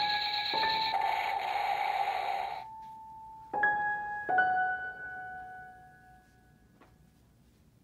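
Electronic sound effects from a toy hand grenade's small speaker: a held electronic tone with a crackly noise for about two and a half seconds, then two chime-like notes, each fading away, the last gone about six seconds in.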